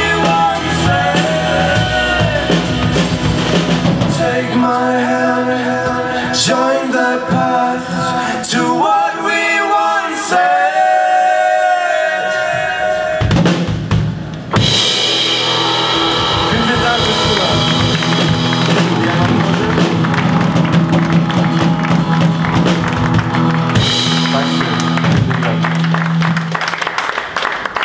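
Live band playing the close of a pop-rock song: drum kit, acoustic guitar, saxophone and keyboard, with a lead vocal for about the first half. After a short break about halfway through, the band plays on without singing and starts to fade in the last second.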